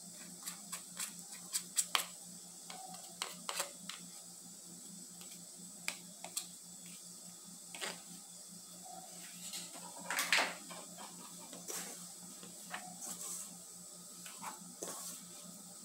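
Spoon and spatula stirring flour into bread dough in a bowl, giving irregular light clicks and scrapes against the bowl, with a louder cluster about ten seconds in. Near the end a hand works the dough. A faint steady hum runs underneath.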